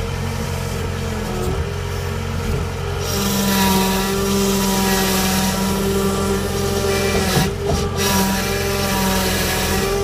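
John Deere 318 skid steer's diesel engine running steadily under load, with a steady whine over it. About three seconds in it gets louder and hissier as the bucket pushes into the brush, and it eases briefly near eight seconds.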